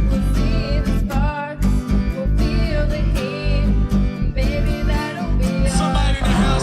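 Country-style music with plucked guitar over a pulsing bass beat, and a wavering melody line on top.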